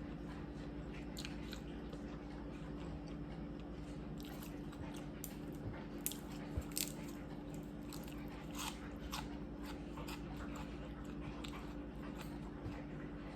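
Close-up eating sounds: chewing and crunching on seafood, with scattered short, sharp crunches and clicks over a steady low hum.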